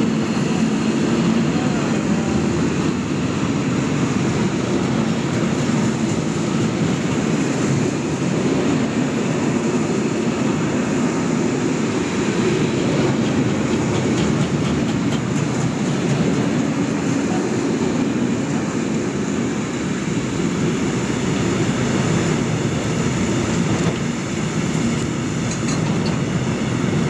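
Loaded freight wagons rolling past at close range: a steady rumble of steel wheels on the rails.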